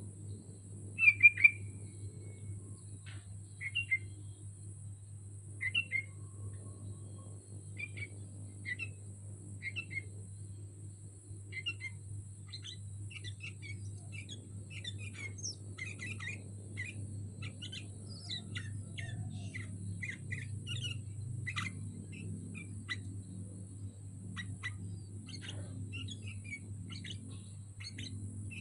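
Sooty-headed bulbul (kutilang) calling: short chirps spaced a couple of seconds apart at first, the loudest about a second in, then quicker, denser chirping from about halfway, over a steady low hum.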